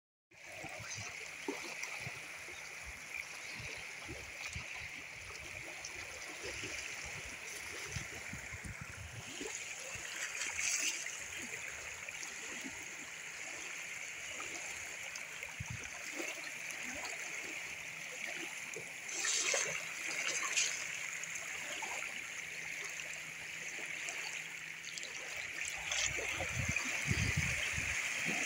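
Shallow mountain stream rippling and gurgling over gravel and stones where it runs into a lake, with small waves lapping at the shore. Brief louder splashes about ten seconds in and again around twenty seconds in.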